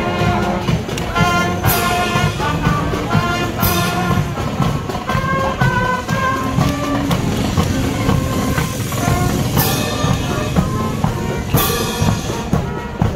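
Marching band playing: brass holding chords over a drumline with bass drums, and a few cymbal crashes punctuating the tune.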